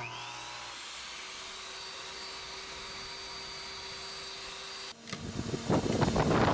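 Ridgid 8-inch wet tile saw switched on: the motor spins up with a rising whine, then runs steadily with a high whine. About five seconds in, the sound breaks off abruptly into a louder, rougher noise.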